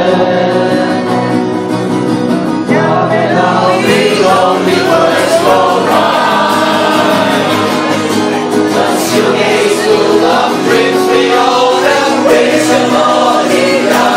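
A group of people singing a song together in chorus.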